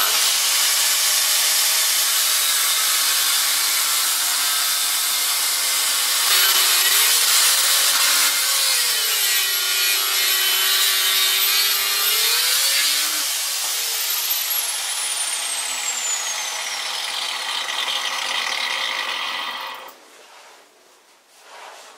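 Angle grinder running and grinding steel, grinding down the tip of a broken drill bit left stuck in the workpiece. Its motor pitch sags for a few seconds midway as it is pressed into the work, and it cuts off near the end.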